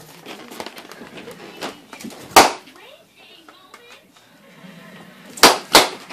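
Three sharp balloon pops from small latex water balloons burst by a ferret's bite: one about two seconds in, then two close together near the end.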